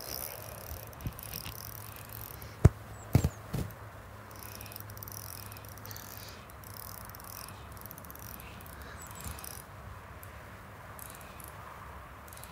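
Fishing reel being wound to retrieve a lure, a fine rapid clicking, with a few sharp clicks or knocks between about two and a half and three and a half seconds in.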